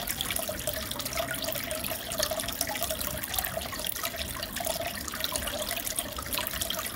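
Aquarium water trickling and bubbling steadily, with a constant fine crackle of small bubbles.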